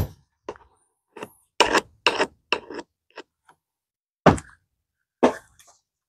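Tools and metal parts being handled on a worktable: a series of short knocks and clacks as pieces are picked up and set down, the loudest just after one and a half seconds and a little past four seconds.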